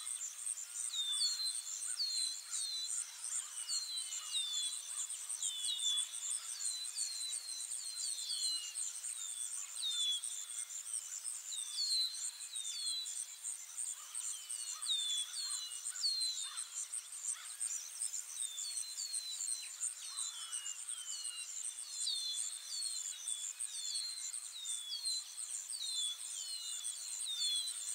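Nature ambience of insects: a steady, finely pulsing high-pitched trill, with many short falling chirps scattered over it.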